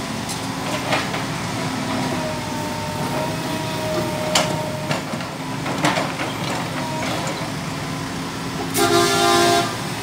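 Komatsu PC200LC hydraulic excavator running steadily as it works rubble, with a few sharp clanks as the bucket and boom move through broken bricks. A vehicle horn honks once for about a second near the end, the loudest sound.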